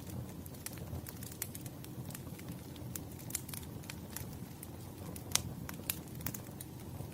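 Wood fire crackling: irregular sharp pops and snaps over a low steady rumble, with one louder pop about five seconds in.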